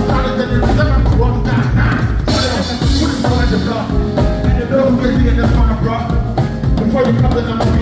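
Live band playing with drum kit and bass, with a cymbal crash about two seconds in.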